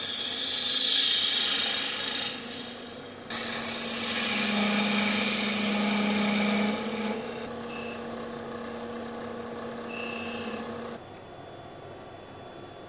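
Bowl gouge cutting into wood spinning on a lathe: a steady scraping hiss of shavings over the lathe motor's hum, in a few stretches that change abruptly. Near the end the cutting stops, leaving a low hum.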